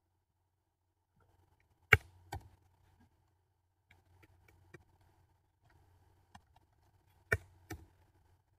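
Clicks of a computer keyboard and mouse during text editing: two loud pairs of clicks, about two seconds in and near the end, with faint tapping between them, over a low hum.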